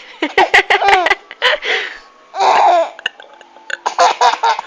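Hard, fitful laughter in quick pulsed bursts, with a short, rougher voiced burst about two and a half seconds in.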